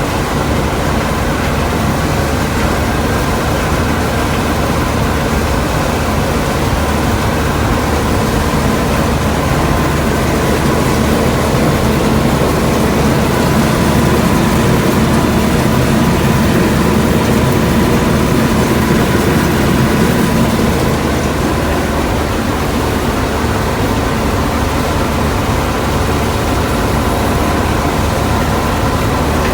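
Combine harvester running steadily while harvesting soybeans: a continuous loud engine and machine drone with a faint steady whine, swelling slightly partway through.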